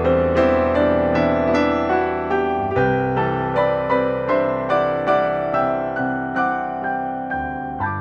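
Background music of struck keyboard notes at a steady pace, about two to three notes a second, fading slightly toward the end.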